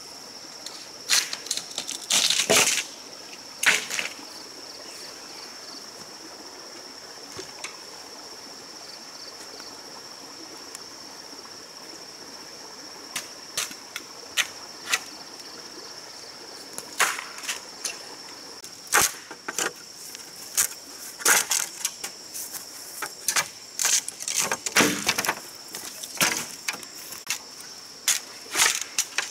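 Sharp, irregular knocks of a machete working bamboo poles, with a couple of longer strokes, over a steady high-pitched insect drone.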